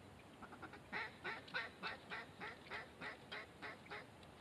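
A faint run of duck quacks, about a dozen short quacks in a quick even rhythm, tailing off near the end.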